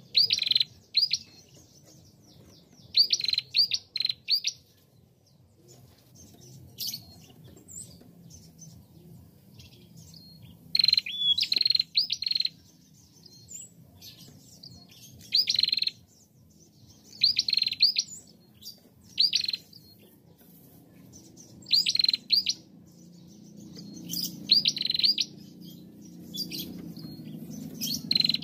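Caged female prenjak, a rufous-headed tailorbird, calling in short bursts of rapid, sharp high chirps, a burst every two to four seconds.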